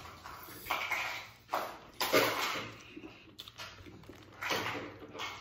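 Close-miked eating sounds: a few short noisy bursts of biting and slurping at a sausage from a seafood boil, the loudest about two seconds in.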